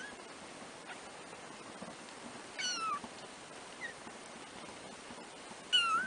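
Three-week-old kittens mewing: two high mews, the first about two and a half seconds in and the second near the end, each falling in pitch, with a brief faint squeak between them.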